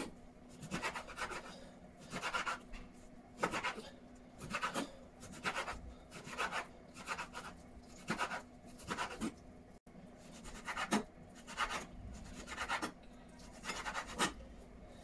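Kitchen knife slicing raw beef into strips on a wooden chopping board: short scraping strokes, one or a quick run of them about every second.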